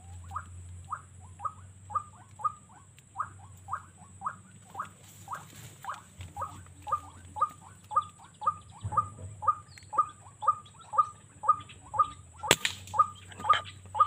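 White-breasted waterhen (ruak-ruak) calls: a long, regular series of short repeated notes, about two a second and quickening toward the end. A single sharp click sounds about twelve and a half seconds in.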